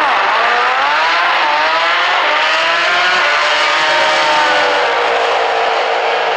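Drag-racing car engines at full throttle down the strip. Their pitch rises to a peak about three seconds in, then falls away and settles.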